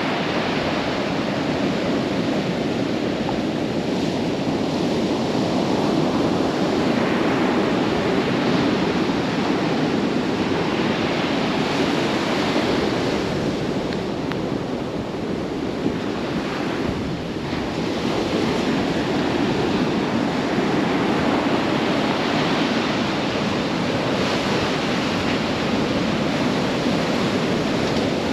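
Atlantic Ocean surf breaking and washing up the beach: a continuous rush of waves that swells and eases every several seconds.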